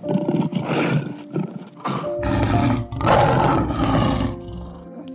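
A large animal roaring in a series of rough calls, the longest running from about two seconds in to about four seconds in, over background music with steady held notes.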